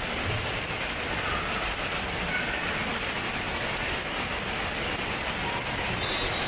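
Steady, even background roar of an indoor water park: water running and splashing from the water play structure and slides, with no clear single event.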